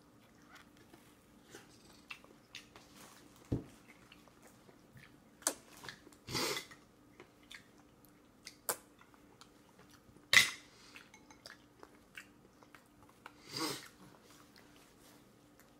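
A toddler's green plastic spoon and fingers knocking and scraping in a stainless steel bowl: scattered sharp clinks, the loudest about ten seconds in, and two longer scrapes, with quiet chewing between them.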